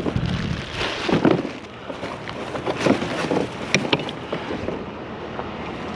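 Irregular knocks and rustles of a brake rotor box being handled and searched through by hand, with a few sharp clicks about halfway through.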